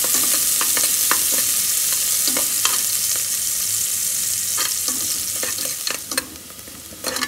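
Chopped onion frying in hot oil in a pressure cooker, a steady sizzle, with clicks and scrapes of a utensil against the pot as it is stirred. The sizzle drops much quieter about six seconds in.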